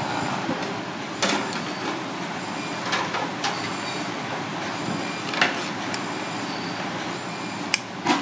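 Kitchen shears snipping through cooked lobster shell, a handful of short sharp clicks and cracks, over a steady hum of street traffic.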